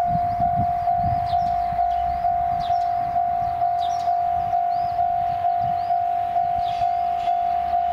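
Railway level-crossing warning bell ringing in an even rhythm, about two strikes a second on one steady pitch, as a diesel multiple-unit train approaches the station with a low rumble. Birds chirp briefly now and then.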